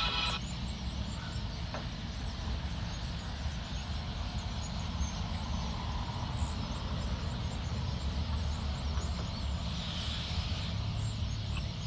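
Road traffic: a steady low rumble of passing cars and trucks with tyre hiss, one vehicle's hiss swelling briefly near the end.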